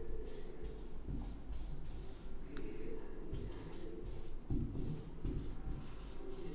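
Marker pen writing on a whiteboard: a run of short scratchy strokes in quick groups, with brief pauses between words.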